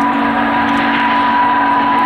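A 2-8-0 Consolidation steam locomotive's chime whistle held in one long, steady blast, several notes sounding together, with a rushing noise underneath.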